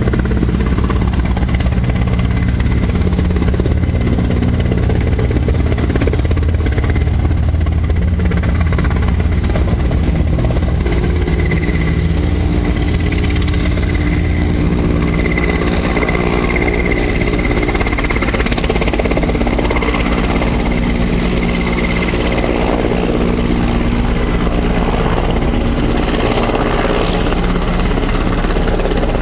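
Helicopter flying overhead: the rotor's rapid, steady low beat with the engine's hum. The low beat eases about ten seconds in.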